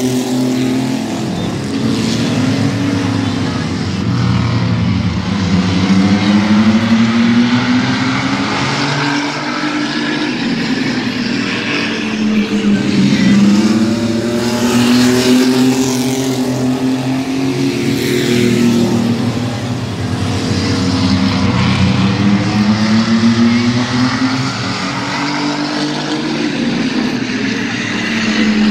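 Mini stock race trucks lapping a short oval. The engines' pitch falls and climbs again every several seconds as the pack lifts for the turns and accelerates back onto the straights, passing close by.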